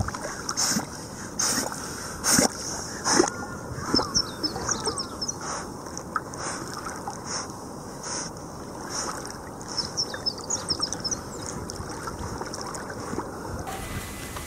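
River water sloshing and splashing close by as dogs swim, with regular splashing strokes a little more than once a second over a steady wash of moving water.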